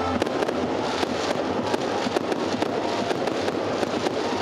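A dense, irregular run of sharp crackling pops, like fireworks going off.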